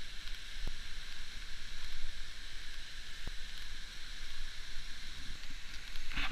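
Steady rushing hiss of a flowing river or stream, with a low rumble underneath and two faint ticks.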